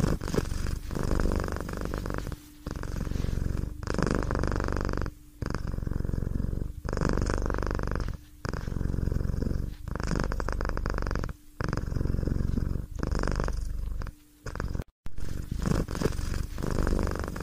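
A domestic cat purring, in repeated long pulses about every second and a half with short breaks between breaths.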